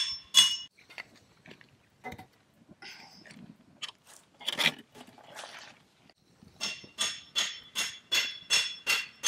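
Repeated ringing, metallic strikes like a hammer hitting metal. A few scattered knocks and clinks come first, then about six and a half seconds in a steady run of blows begins, about two to three a second.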